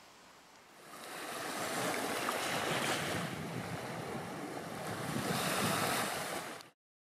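Sea surf: a steady wash of waves that fades in about a second in, swells a little twice, and cuts off abruptly near the end.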